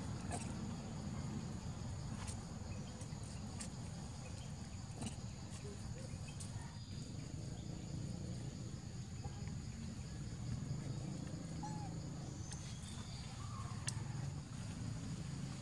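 Outdoor ambience: a steady low rumble under a faint high insect drone, with a few faint bird chirps and scattered small ticks.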